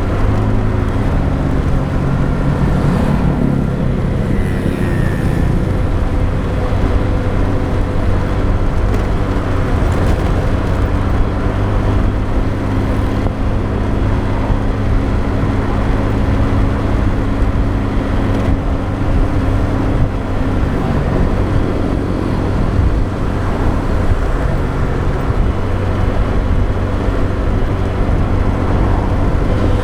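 A motorbike engine running under way, with steady road noise. The engine's pitch shifts a few seconds in and again about two-thirds of the way through.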